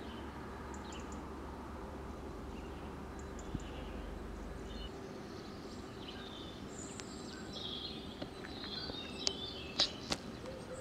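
Small birds chirping now and then over a steady background hum. The chirps grow busier in the second half, and a few sharp clicks come near the end.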